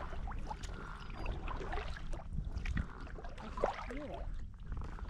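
Kayak paddle strokes dipping and splashing in lake water, with water trickling off the blade in an irregular rhythm.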